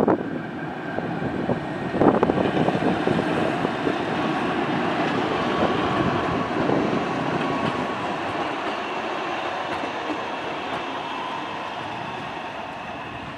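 Kassel RegioTram (Alstom RegioCitadis light rail vehicle) running past at low speed, its wheels rolling over the rails with two sharp knocks in the first two seconds and a faint thin whine for a few seconds in the middle. The sound swells as it goes by, then slowly fades as it moves away.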